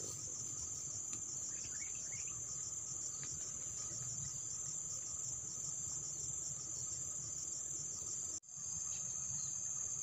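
Insects trilling steadily in the grass, a continuous high-pitched buzz with a fine regular pulse. It cuts out for a split second once, near the end.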